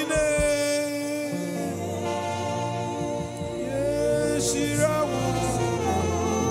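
Church worship music: a voice singing over long, steadily held chords.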